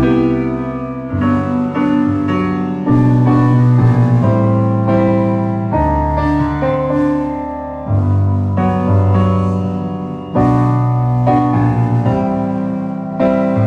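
Stage keyboard played with a piano sound: slow two-handed chords over deep bass notes, a new chord struck every two seconds or so and left to ring.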